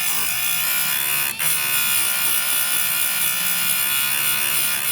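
Electric bench chain grinder grinding the cutting teeth of a chainsaw chain, a steady loud grinding whine with a short break a little over a second in. It cuts off abruptly near the end, leaving a quieter hum.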